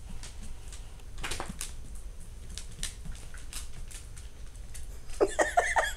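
Dogs' claws clicking and skittering on a hardwood floor as they scamper in play. Near the end, a quick run of high yips from one of the dogs.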